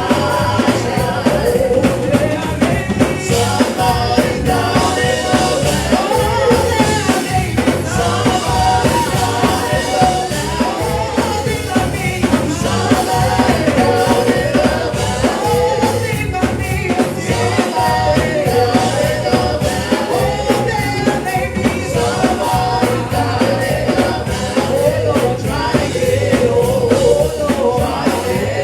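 Live gospel music: a band with drums playing a steady beat while voices sing.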